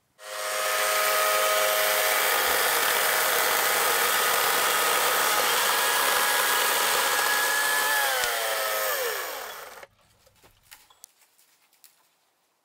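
Atlas 40V brushless electric chainsaw running flat out and cutting into a palo verde branch: a steady motor whine over the hiss of the chain. Near the end the whine slides down in pitch as the motor slows, and the sound cuts off sharply.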